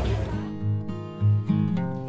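Background music of plucked acoustic guitar notes, coming in about half a second in as outdoor crowd noise fades out.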